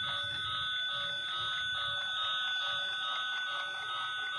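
Battery-powered toy high-speed train running on its plastic track, its built-in sound effect giving a continuous electronic ringing like a bell over the low rattle of its motor and wheels.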